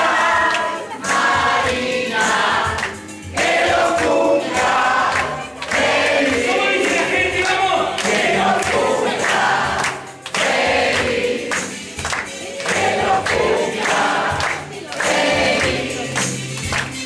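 A group of people singing together loudly, with hands clapping along.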